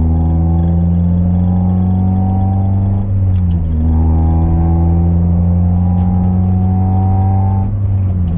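Honda F23A four-cylinder engine running steadily at raised revs. Its speed dips briefly about three seconds in and again near the end, then climbs back.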